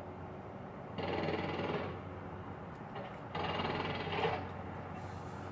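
Construction machinery noise: two bursts, each about a second long, about a second in and again about three seconds in, over a steady low hum.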